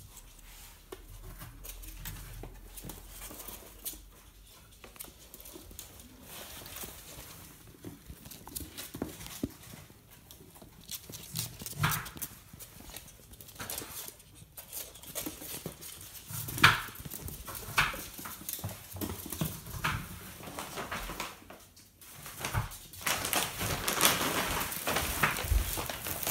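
Ferrets scampering and scuffling on a tile floor, with many small irregular clicks and taps of claws and bodies against tile and cabinet. From about three-quarters of the way in, a louder rustling and crinkling of a plastic shopping bag as they tumble inside it.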